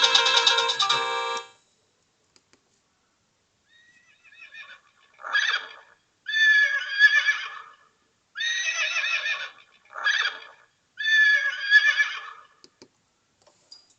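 Horse-whinny ringtone played through the small built-in speaker of a Sagem my700X mobile phone: five whinnies over about eight seconds, short and long in turn. Before it, the last notes of a musical ringtone end about a second and a half in, followed by a few seconds of pause.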